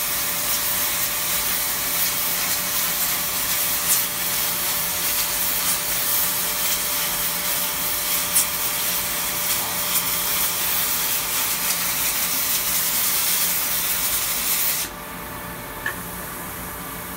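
Handheld compressed-air blow gun hissing steadily as it blows off freshly milled aluminum parts, with a few short ticks. The air cuts off about 15 seconds in, leaving a quieter, steady machine hum.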